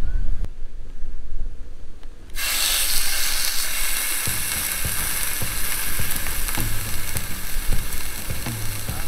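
Thick steak sizzling steadily in hot oil on a square iron griddle plate. The sizzle starts suddenly about two seconds in.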